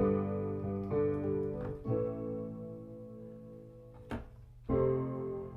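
Piano chords played slowly: a chord struck at the start, two more about a second apart, then a fourth near the end, each left to ring. A single short click sounds a little after four seconds in.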